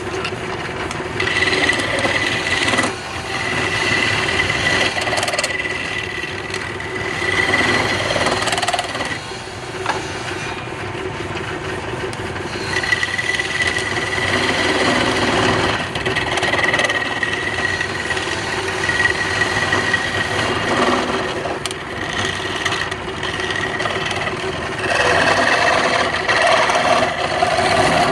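Wood lathe running steadily, with a high whine that comes and goes as a tool scrapes the spinning wood.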